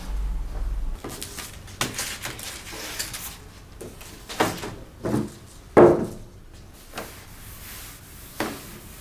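Household knocks and clunks from things being handled while tidying: about eight separate short knocks, the loudest a little before six seconds in, after a brief low rumble at the start.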